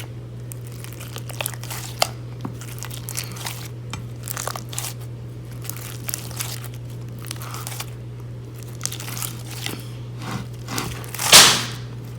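Slime being squeezed and kneaded by hand, giving a run of small crackling clicks and pops from trapped air. There is one louder, longer squish near the end.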